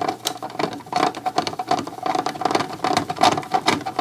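Screwdriver driving a screw into a CD player's sheet-metal rear panel: a rapid, irregular clicking and scraping.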